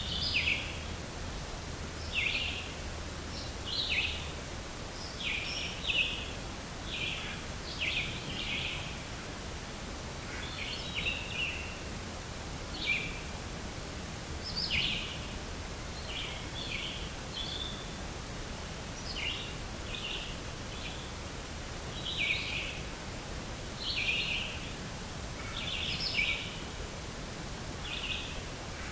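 A bird calling over and over, short high notes about every one to two seconds, over steady outdoor background noise.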